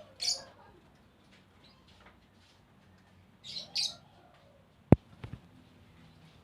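Young Asian pied starling giving short, harsh, screechy calls: one just after the start and two in quick succession about three and a half seconds in. About a second later comes a single sharp knock, the loudest sound, followed by a lighter tap.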